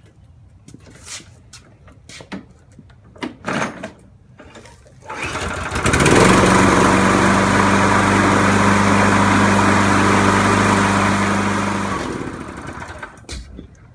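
Gasoline lawnmower engine, with a freshly repaired carburetor and pull cord, being test-started. After a few short knocks and scrapes it starts about five seconds in, runs steadily for about six seconds, then is shut off and winds down.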